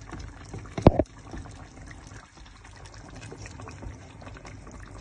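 A simmering curry of hilsa fish and ridge gourd bubbling in a pot while a wooden spoon stirs through it, with one sharp knock about a second in.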